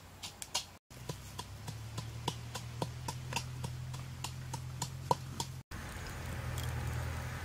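A hand tool knocking as it strikes down again and again on something on the ground, quick and even at about four strokes a second. After a cut near the end comes a wood fire's soft crackle and hiss.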